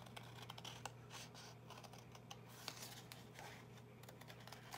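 Small scissors cutting through folded paper: faint, irregular snips and scratchy clicks of the blades as the paper is turned.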